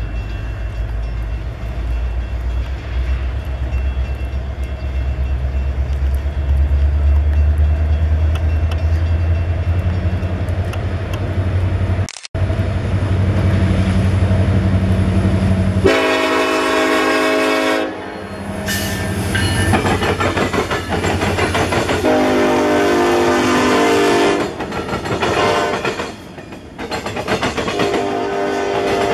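Union Pacific diesel freight locomotives passing with a deep, steady engine rumble, then sounding a multi-chime air horn in several long blasts, about 16 s in, again around 22 s and near the end, as a double-stack container train rolls by.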